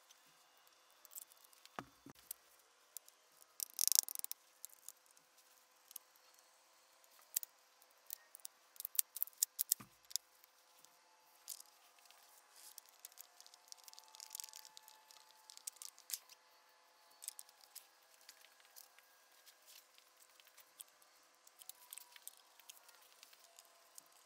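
Springfield Model 67 pump-action shotgun being put back together by hand: scattered sharp metal clicks and small knocks as parts are fitted, the loudest about four seconds in and a cluster around nine to ten seconds, fewer and fainter afterwards.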